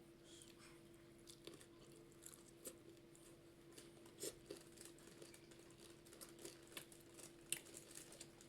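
Faint chewing and mouth clicks of a person eating, irregular soft smacks scattered through, over a low steady hum.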